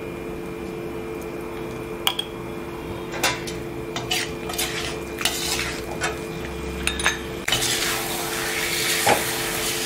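A steel ladle scraping and clinking against a steel kadai as chicken pieces are stirred, in irregular knocks. About two-thirds of the way in, a steady sizzling hiss takes over as the chicken fries in the hot oil.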